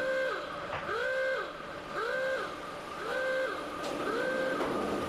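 Oblivion roller coaster machinery on its first test run: a whine that rises, holds and falls in pitch about once a second, five times over.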